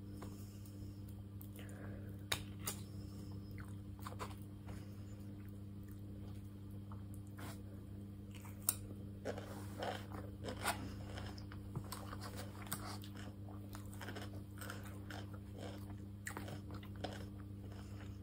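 A person chewing and crunching food close to the microphone, with scattered sharp clicks and crunches over a steady low hum.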